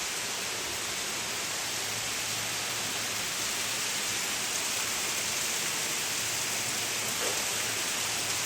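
Steady rushing hiss of running water, even throughout, with a faint low hum beneath and a small click about seven seconds in.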